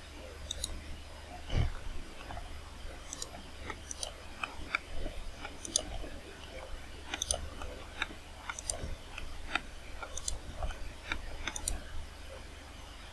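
Computer mouse button clicking at irregular intervals, roughly a couple of clicks a second, as spline control points are placed, over a faint steady low hum.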